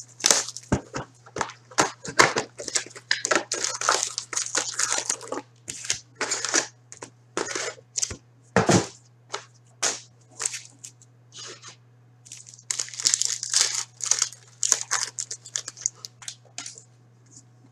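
Foil wrappers of SP Authentic hockey card packs crinkling and tearing as they are lifted from the box and ripped open, in quick irregular rustles with a short lull in the middle. A faint steady low hum runs underneath.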